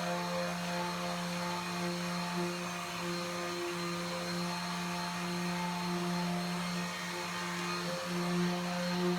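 Electric sander running steadily on painted plywood, a constant motor hum with a few brief dips in pitch as it is pressed into the surface.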